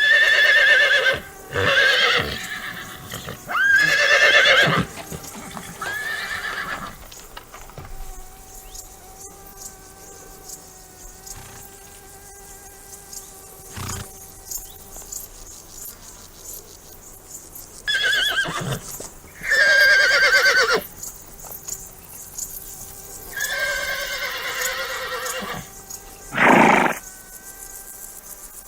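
Horses neighing and whinnying several times: a run of calls in the first seven seconds, then more from about eighteen seconds in, ending with a short call near the end.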